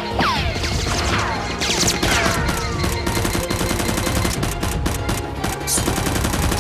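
Rapid gunfire, a sustained fusillade of fast shots, with several falling whistling sounds in the first couple of seconds, over background music.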